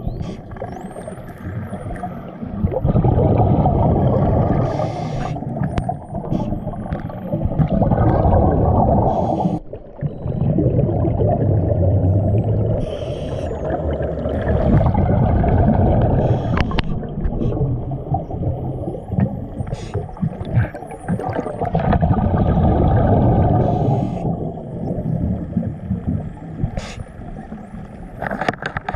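Underwater sound picked up by a diver's camera: a loud, low rush of moving water that swells and fades, broken by a few short bursts of higher hiss, with faint high chirping glides coming and going.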